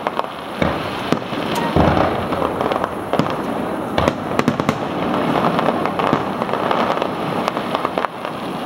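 Fireworks display going off: an irregular series of sharp bangs and pops, a dozen or so, over a steady rushing background noise.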